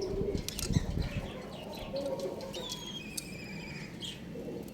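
Birds flapping and calling: a flurry of knocks and flaps about a second in, low wavering calls, and a thin, high, wavering chirp in the middle.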